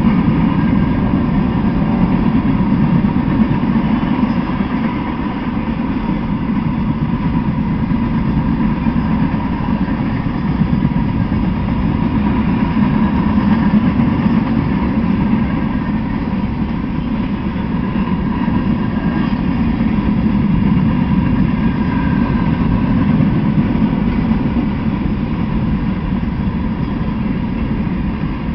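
Freight train cars (covered hoppers, tank cars and boxcars) rolling past close by, a steady rumble of steel wheels on the rails with a thin steady whine above it.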